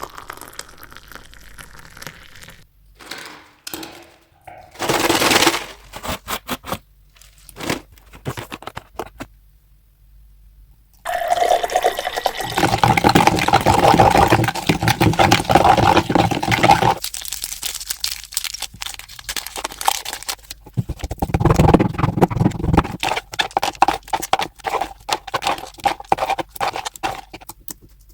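Slime being squished and stretched by hand: wet squelching with many small crackling pops, in short bursts at first, then a long busy stretch a little before the middle, and more bursts after.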